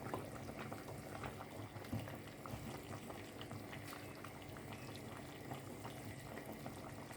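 Pot of stewed chicken and pork simmering, the sauce bubbling with a steady run of small pops.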